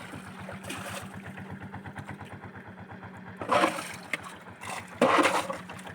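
Boat engine running steadily with an even, rapid pulse, and two short louder rushing bursts over it, a second and a half apart, near the end.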